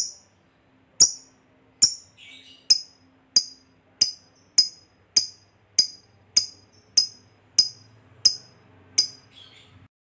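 A Fischer's lovebird giving its 'ngetik' typing call: a series of about fourteen sharp, high ticks a little under a second apart, getting slightly faster. A brief softer chatter comes after the third tick and again after the last.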